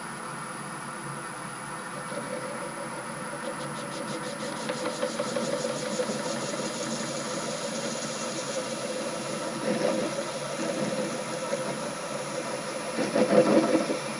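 Metal lathe running with a ball-turning tool cutting an aluminium ball handle. The cutting noise builds a couple of seconds in and turns loudest and roughest near the end.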